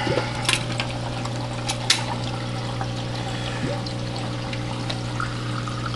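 Aquarium water trickling and splashing steadily over a low, even hum, with a couple of light clicks near the start and about two seconds in.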